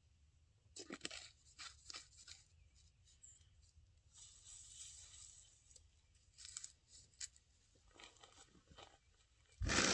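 Faint, scattered crunching and rustling of dry leaves and shelled corn as a man works a corn pile on the ground by hand, with a much louder rustle near the end.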